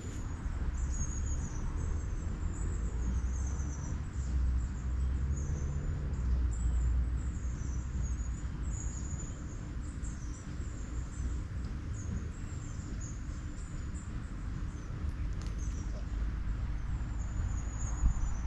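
A small songbird chirping over and over in short, high notes, above a steady low rumble.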